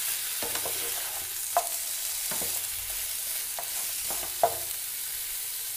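Chicken pieces sizzling in a little mustard oil in a frying pan, with a steady hiss, while a wooden spatula stirs them, scraping and knocking against the pan several times, about once a second.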